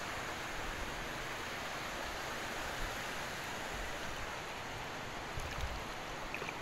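Steady hiss of shallow seawater washing around the feet and rocks at the shoreline, with wind on the open air.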